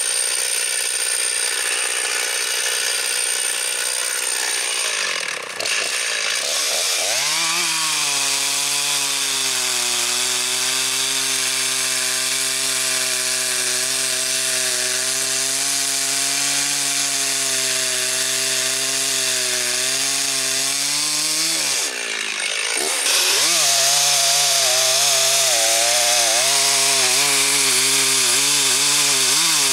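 Chainsaw with a freshly dressed bar running at full throttle and cutting slabs off a log, the engine held steady under load. Its pitch dips and recovers twice, about five seconds in and again about twenty-two seconds in.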